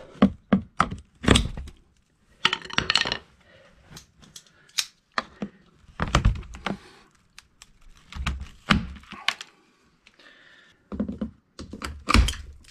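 Irregular sharp clicks, taps and knocks of things being handled at close range.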